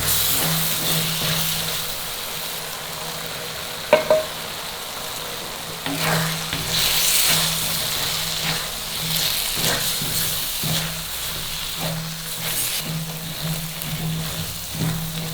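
Food sizzling in a hot pan as it is stirred, with irregular scraping strokes and one sharp clink about four seconds in.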